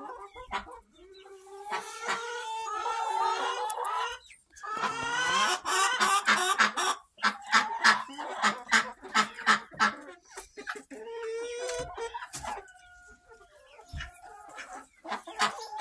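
A barn flock of chickens clucking and calling: two long drawn-out calls in the first seven seconds, then a run of short clucks, and another held call a little past the middle.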